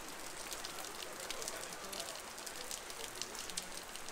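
Downpour on a city street: a steady hiss of heavy rain, dense with sharp ticks of drops splashing.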